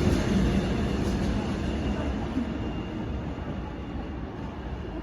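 A train running on the track, a steady low rumble that slowly fades away.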